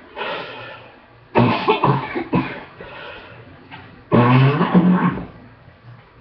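A person coughing in two loud bouts, about a second in and again about four seconds in, the second the loudest. It is a lingering cough from a two-week illness, on the mend with a second round of antibiotics.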